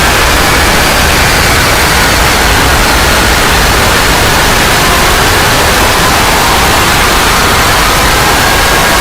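Loud, steady static hiss of white noise, with faint thin tones underneath drifting slowly in pitch.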